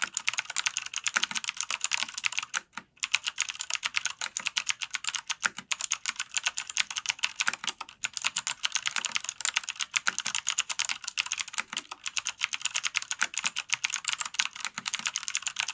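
Fast, continuous typing on a Cherry MX Board 1.0 TKL mechanical keyboard with clicky Cherry MX Blue switches: a dense patter of sharp key clicks, broken by a couple of brief pauses.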